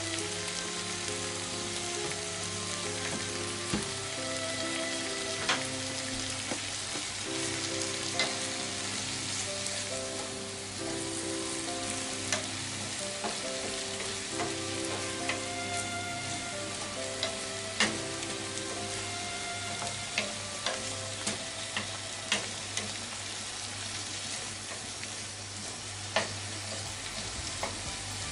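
Cabbage and onion sizzling in a nonstick frying pan while a wooden spatula stirs them. Sharp knocks of the spatula against the pan now and then, several in quick succession about two thirds of the way through.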